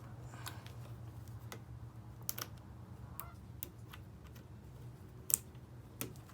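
Scattered light clicks and taps of small cable-mechanism parts being handled and fitted, the sharpest about five seconds in, over a steady low hum.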